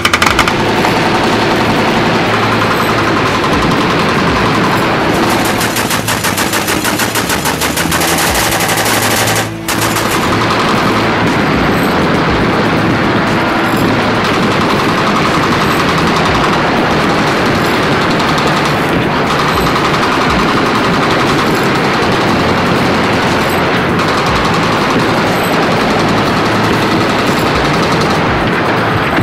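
Ship-mounted, belt-fed machine gun firing long rapid bursts, the shots running together almost without pause. There is a brief break about nine and a half seconds in.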